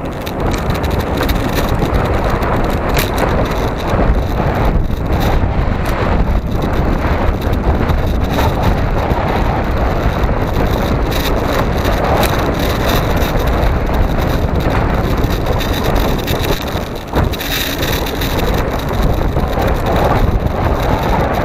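Wind rushing and buffeting over the microphone, with the rumble of tyres rolling on asphalt from a moving vehicle: a loud, steady noise with frequent gusts.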